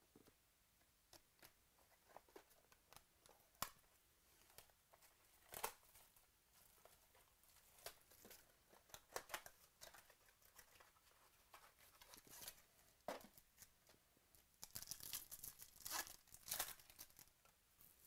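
Faint handling of trading cards and their packaging: scattered light clicks and slides of card stock, then a denser burst of crinkling and tearing near the end as a Bowman Chrome foil pack is ripped open.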